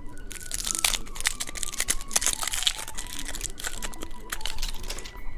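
Crinkly plastic candy wrapper being handled and torn open, a dense run of crackles and rustles.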